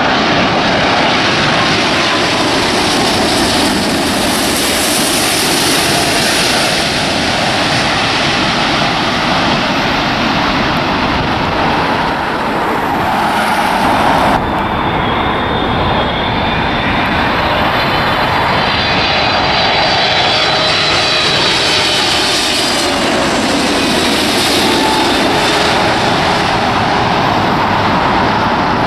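Jet airliners on final approach passing low overhead, heard as a loud, steady rush of jet engine noise. First comes a four-engined Airbus A380; after a sudden cut about halfway through comes a twin-engined widebody jet, with a faint high whine over the rush.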